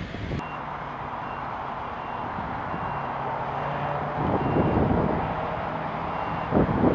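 Jet engines of a United Boeing 787 at takeoff thrust on its takeoff roll: a steady rush. A faint high beep repeats about every two-thirds of a second, and gusty low rumbles come in about four seconds in and again near the end.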